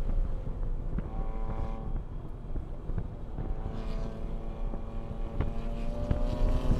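2021 Toyota A90 Supra's engine droning steadily at light throttle, heard from inside the cabin with low road rumble and occasional short knocks. Near the end the engine note starts to rise as it accelerates.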